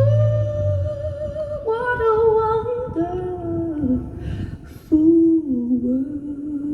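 A recorded voice humming long held notes that step and slide downward over a soft accompaniment, played back through hi-fi speakers in a small room.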